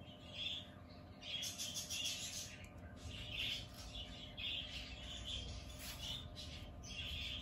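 A small bird chirping again and again, in short, high calls.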